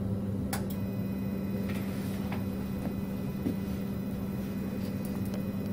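Steady low hum of a running Hyrel 3D printer, its print heads heated, with a few faint clicks.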